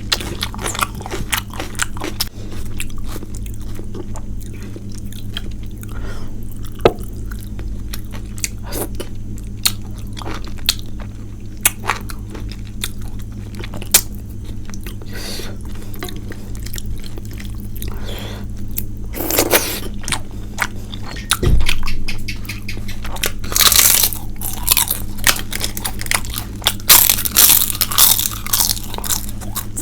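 Close-miked eating of a rice-and-curry meal: chewing and biting with crunches and wet mouth clicks, louder bursts of crunching in the second half, over a steady low hum.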